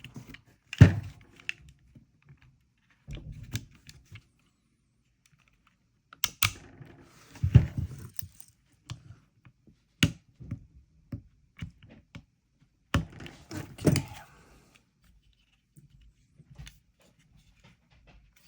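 Small metal parts of a Glock 45 Gen 5 pistol being handled and pressed back into the frame as the locking block and pins are refitted: scattered clicks, taps and light knocks, a few much louder than the rest, with short quiet gaps between.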